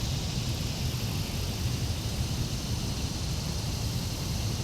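Steady outdoor ambience: wind rumbling on the microphone under a steady high hiss.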